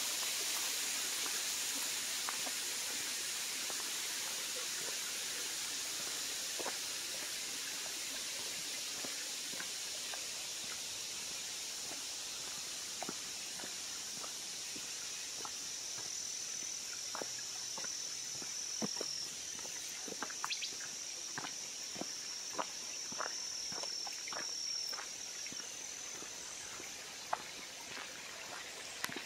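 Footsteps crunching on a dirt forest trail over the steady hiss of creek water, which slowly fades. A high, steady insect buzz joins in the middle part, and the steps come more often in the second half.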